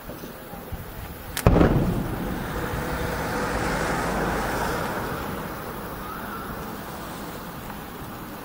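Distant aerial firework shell bursting: one sharp boom about one and a half seconds in, followed by a rolling rumble that swells and then slowly fades over several seconds.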